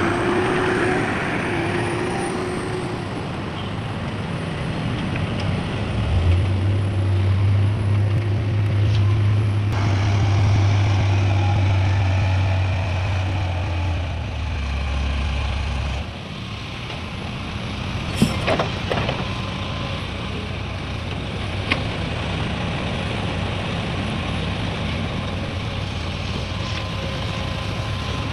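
Heavy diesel trucks and machinery running, with a deep engine drone from about six to sixteen seconds in and two sharp clanks a little past the middle.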